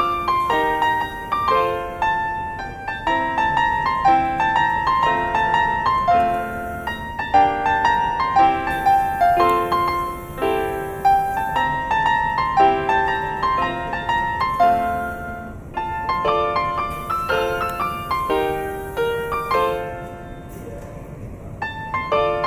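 Background piano music: a steady flow of separate notes, softer for a moment near the end.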